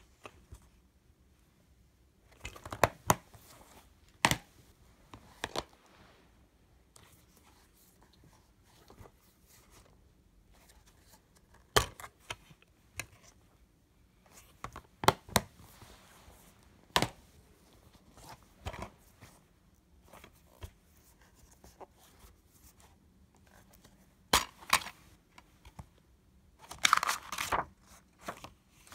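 Plastic DVD keep cases being handled, opened and snapped shut: scattered sharp clicks and snaps a few seconds apart. Near the end there is a short burst of rustling and scraping as a VHS tape in its sleeve is handled.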